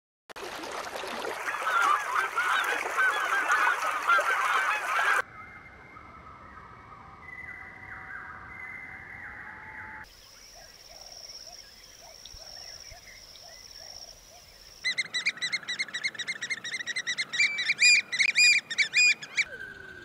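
Bird calls in a string of abrupt cuts. First a loud, dense chorus of many overlapping calls. Then a few clear whistled notes, then a quieter stretch with a thin high steady tone and soft short low notes, and from about three-quarters of the way in, loud, rapid, repeated calls.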